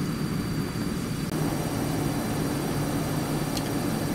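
A steady low mechanical drone with a hum in it, getting a little fuller and hissier about a second in.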